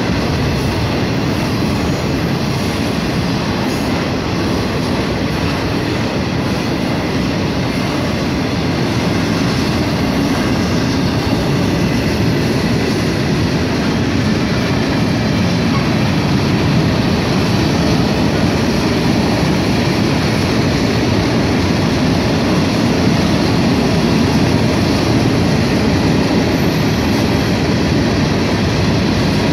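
Freight train cars rolling past: a steady rumble of steel wheels on rail, growing slightly louder in the second half as double-stack container cars give way to tank cars.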